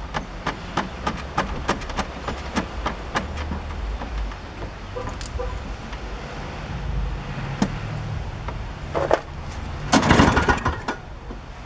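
A run of light, quick clicks, then the recoil starter of a Toro CCR two-stroke snowblower pulled hard twice near the end, the engine turning over without catching, starved of fuel.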